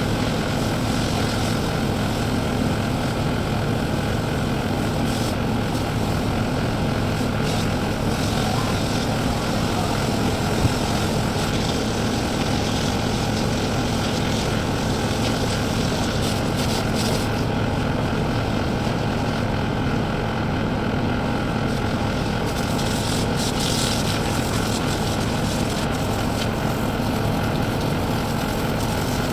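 Engine running at a steady, constant speed: a continuous drone with a low, even hum and no change in revs. A single brief knock comes about ten seconds in.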